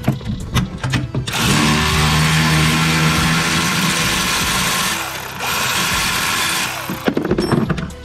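Cordless electric ratchet with a 15 mm socket running in two bursts, about three and a half seconds and then about a second and a half, with a short dip between, spinning the nut off the brake pedal's pivot bolt. Light clicks of the tools come before and after.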